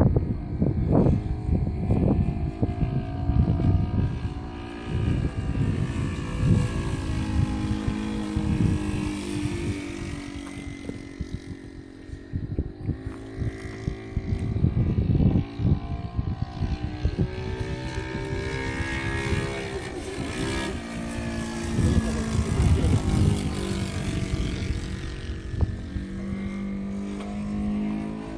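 Saito FG-40 four-stroke petrol engine of a radio-controlled DHC-2 Beaver model plane running in flight overhead, its pitch drifting up and down as the plane passes and the throttle changes, with gusty wind rumble on the microphone.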